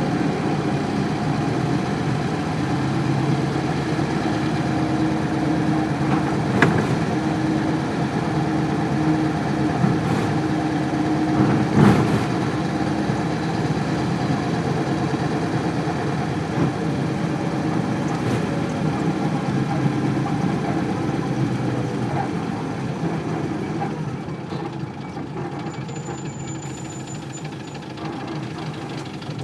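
Isuzu Cubic city bus's 8PE1 V8 diesel engine running, heard from inside the bus, with a few sharp knocks and rattles. It quietens down near the end.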